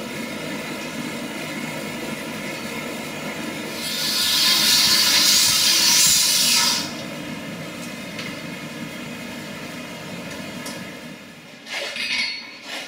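Angle grinder cutting through a steel coil spring for about three seconds, over a steady mechanical rumble, followed near the end by two short metal clanks from a hammer on the anvil.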